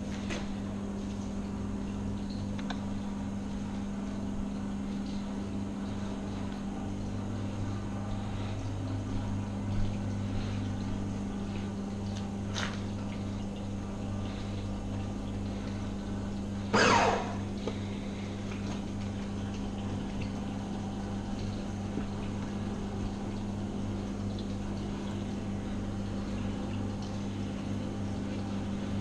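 A steady low hum, such as a running motor makes, with a faint click about twelve seconds in and a short louder noise about seventeen seconds in.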